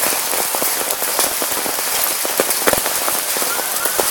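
Hail pelting down hard: a steady hiss of falling ice with frequent sharp cracks of individual hailstones striking.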